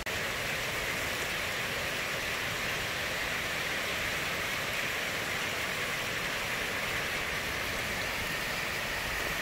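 Water cascading down a rocky mountainside: a steady, even rush with no breaks.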